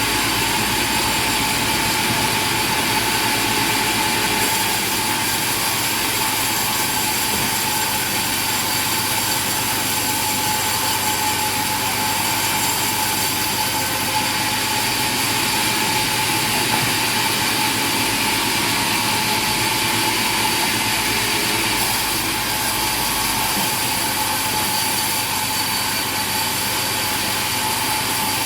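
Steady machine noise with a constant whine and a low hum, unbroken throughout.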